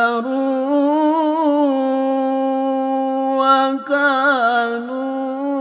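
Quranic recitation (tajwid): a single voice chanting the word "fastakbarū", drawn out as one long held note with a slight waver, breaking into quick melodic turns about four seconds in.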